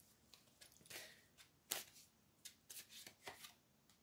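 Faint, scattered clicks and rustles of tarot cards being handled, in near silence.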